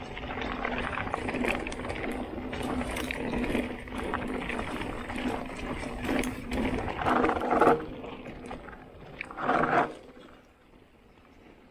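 Mountain bike riding down a dirt forest singletrack: tyres rolling over dirt and roots, with the bike rattling and clicking over the bumps. Two louder rough bursts come about two-thirds of the way through, then the noise falls much quieter near the end.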